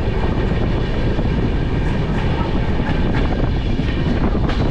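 Train locomotive running steadily: a loud, even rumble with faint steady whining tones over it.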